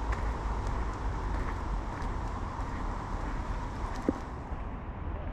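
Steady rumble of road traffic, with one brief short sound about four seconds in.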